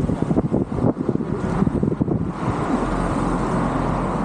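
Road traffic passing on a multi-lane road, with a car going by close in the near lane toward the end. Wind gusts buffet the microphone in the first half.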